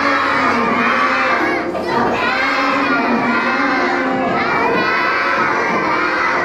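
A group of young children singing a song together in unison, loud and continuous, with a short break between lines about two seconds in.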